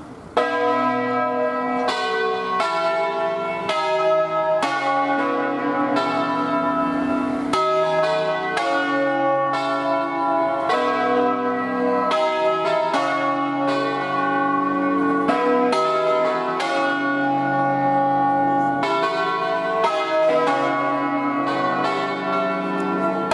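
Church bells of a five-bell ring in B, cast by Barigozzi, swung full circle on wheels by rope in the Ambrosian style. The strokes come in quick succession, one every half second or so, and the tones overlap into a continuous peal. The ringing starts suddenly about half a second in.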